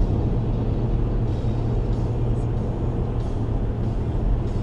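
Steady low rumble of a car driving, with engine and tyre noise heard from inside the cabin.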